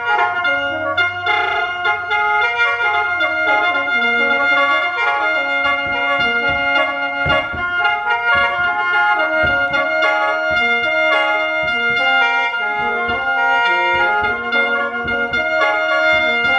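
Instrumental intro music: held melody notes over a moving bass line. It cuts off abruptly at the end.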